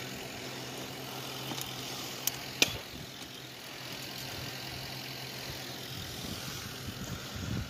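Honda four-cylinder engine idling steadily while it warms up; the radiator cooling fan has not yet come on. Two sharp clicks sound about two and a half seconds in.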